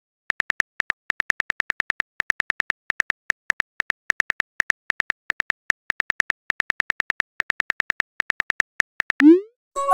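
Phone keyboard typing clicks from a texting-app sound effect, a quick run of about six taps a second with short pauses. Near the end a short rising swoosh as the message is sent.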